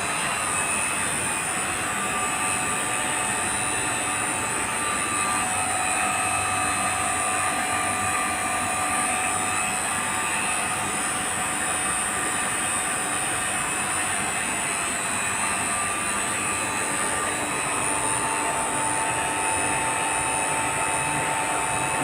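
Refrigeration vacuum pump running steadily, evacuating VRF system piping: an even rushing hiss with a few steady whining tones over it.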